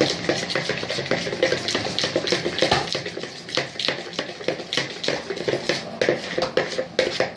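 A spoon stirring a thick mixture in a deep bowl, with a quick irregular run of clicks and scrapes against the bowl.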